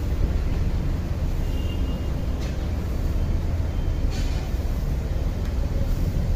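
A steady low rumble of background noise, with a few faint brief hisses.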